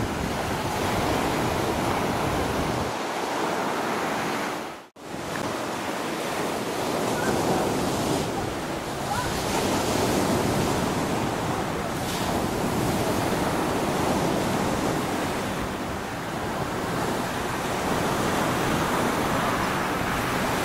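Wind rushing across the microphone together with sea surf: a steady, noisy rush that briefly cuts out about five seconds in.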